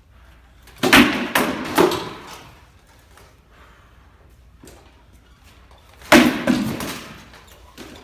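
Hard knocks of sparring swords striking shields and armour: a quick run of two or three blows about a second in, and another about six seconds in, with a fainter knock or two between.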